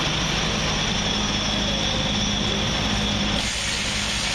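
Loud, steady machinery noise filling a work area: a constant low hum with a steady high whine over a broad hiss, described as really loud.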